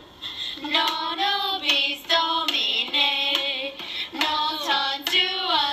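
A child singing a short melody in a high voice, in several phrases with held, wavering notes.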